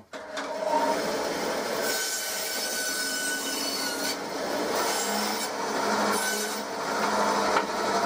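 Bandsaw running and cutting a piece of wood, coming in abruptly just after the start as a steady rasping whir with a faint whine over it.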